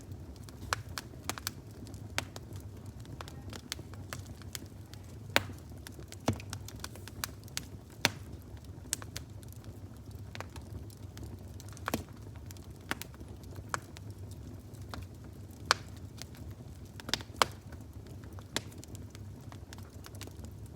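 Fire crackling: irregular sharp pops and snaps, a few much louder than the rest, over a steady low rumble.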